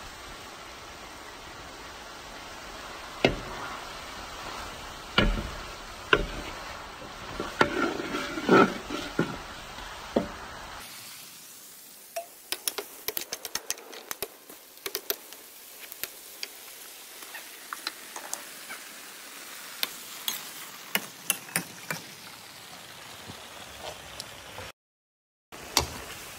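Vegetables and pork sizzling in a wok while a metal spatula and ladle stir and scrape, with sharp knocks and clinks of the metal against the pan; the knocks are heavier in the first half and turn into quicker light ticks later.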